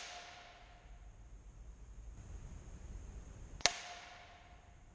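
A single air rifle pellet shot striking the paper target, heard from the target end, about three and a half seconds in: one sharp crack with a brief ringing ping after it. The ring of a previous shot is fading at the start.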